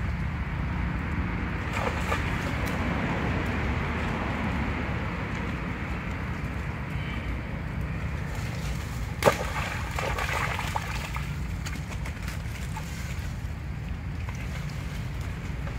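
Long-tailed macaques wading and splashing in a shallow muddy puddle, under a steady rumble of wind on the microphone. A single sharp knock about nine seconds in is the loudest sound.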